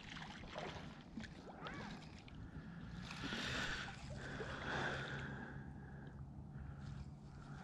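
Faint sloshing and splashing of lake water, a little louder between about three and five seconds in.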